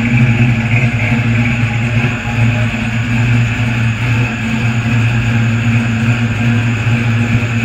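LS-swapped Oldsmobile Cutlass's 6.0-litre V8 idling steadily after a cold start.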